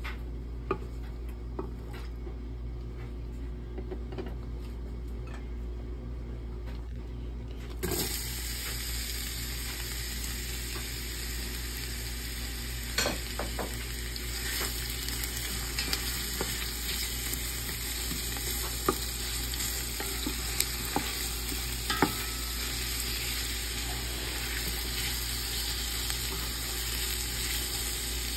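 Sliced red onions start sizzling in hot oil in a stainless steel pot: the sizzle comes in suddenly about eight seconds in and then runs steadily. A wooden spatula stirs them, with sharp knocks against the pot now and then; before the sizzle there are only light taps over a low hum.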